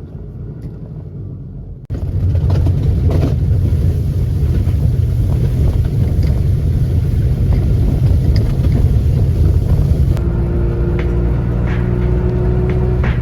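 Subaru R-2's air-cooled 360cc two-stroke twin engine running with a steady low rumble, which jumps louder after a sudden cut about two seconds in.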